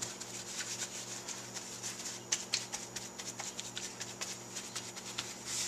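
Paper towel patting and rubbing raw fish fillets dry on a plastic cutting board: a run of soft, irregular rustles and pats.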